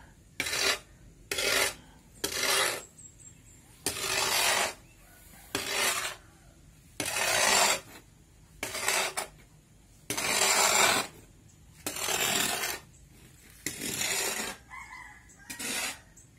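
Square-bladed steel shovel scraping across a concrete floor and turning a heap of dry sand and cement, about a dozen rasping strokes a second or so apart. It is the dry mixing of mortar before water is added.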